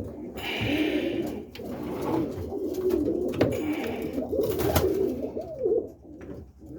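Several roller pigeons cooing at once, overlapping and wavering, with a few short rustles and sharp clicks among them.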